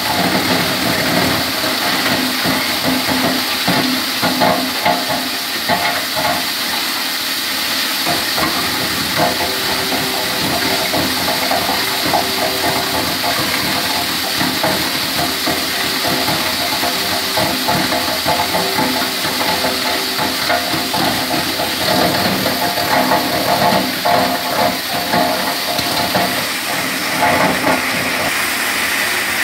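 Wood crusher machine running steadily, grinding wood to sawdust: a loud whirring rush with a constant hum and irregular crackling.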